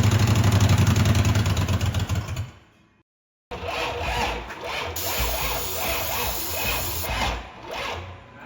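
Ram pickup's engine running with whole milk and cereal in its crankcase instead of oil, a steady pulsing beat that winds down and stops about two and a half seconds in. After a short gap, quieter irregular rustling and handling noise.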